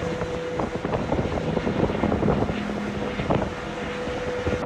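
Wind buffeting the microphone in irregular gusty thumps over the steady rush of water and a boat's engine.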